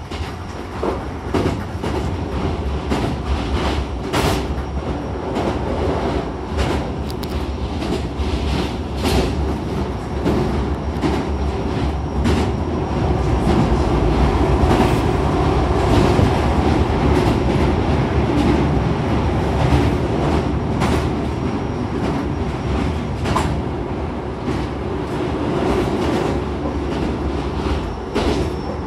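Interior running noise of a Hankyu commuter train at speed: a steady low rumble of wheels on rail, with irregular sharp clacks as the wheels pass rail joints. It grows louder in the middle.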